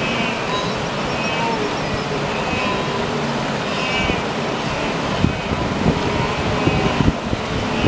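A wildebeest herd crossing a river: a steady rush of splashing water from the mass of animals, with scattered calls from the herd over it. A few low thumps come in the second half.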